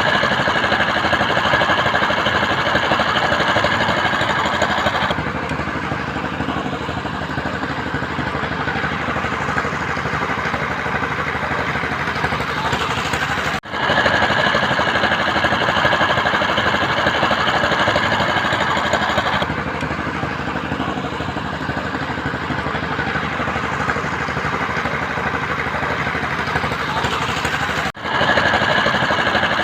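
Construction machinery engine running steadily, with a dense mechanical clatter. The sound drops out for a moment twice and picks up again the same way each time.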